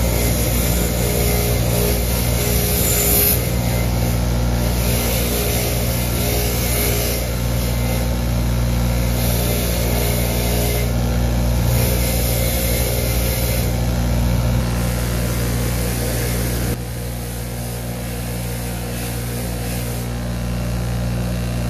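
Bench grinder running with a steady motor hum while a paintbrush full of hardened, dried paint is pushed into its spinning wire wheel, stripping the bristles with a scratchy hiss that comes and goes as the brush is pressed in and eased off. The whole sound drops a little about seventeen seconds in.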